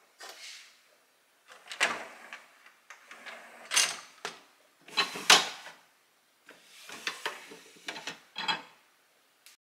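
Wire dish racks of a countertop dishwasher slid in and out and rattled by hand: about six short rattling slides, the loudest a little past the middle.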